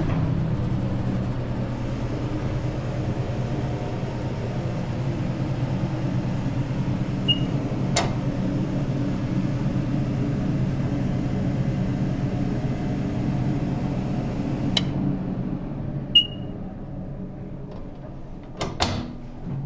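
Otis hydraulic elevator car travelling: a steady low hum under a higher hiss, with a few sharp clicks and two short high beeps. About three-quarters of the way through, the hiss cuts off and the hum fades away, then a double knock comes near the end.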